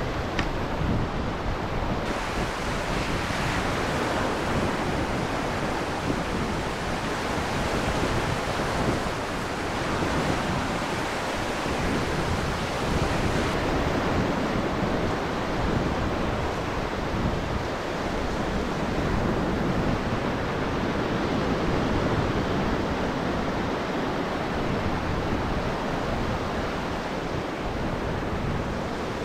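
Ocean surf breaking and washing up a sand beach, a steady rush of waves, with wind buffeting the microphone.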